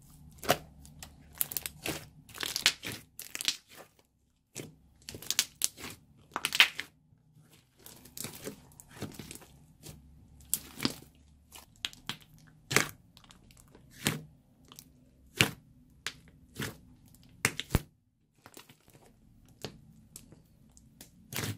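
Hands squeezing, stretching and pressing a large lump of thick, glossy slime: irregular sharp, sticky pops and crackles, some coming in quick clusters, with short pauses between handfuls.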